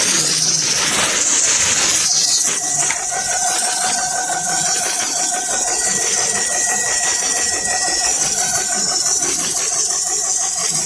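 NUOGE portable high-pressure PCP air compressor running, a steady motor whine with a loud air hiss that eases about two seconds in.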